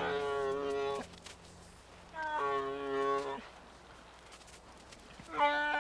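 Goat bleating: three drawn-out, fairly high calls of about a second each, with short pauses between.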